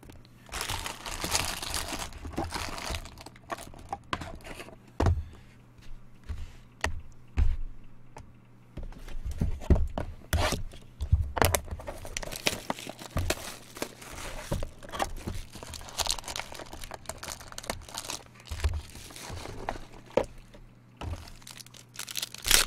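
Foil trading-card packs being torn open, with wrappers crinkling and cards rustling as they are handled. Irregular ripping and crinkling, broken by clicks and a few dull thuds on the table.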